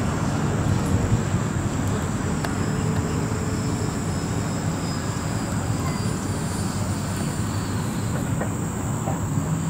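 Twin 70 mm electric ducted fans of a radio-controlled Boeing 737 MAX model jet heard from a distance as it flies overhead: a steady rushing noise, with a constant thin high tone over it.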